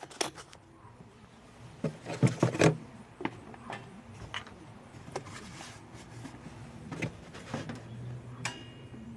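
Scattered clinks and knocks of a plastic coolant jug and cap being handled, with a cluster of louder knocks about two seconds in and a short squeak near the end.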